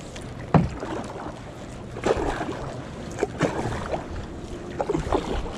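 Kayak paddle strokes: the blades dipping and pulling through the water with a splash about every one and a half seconds, over a steady rush of water and wind.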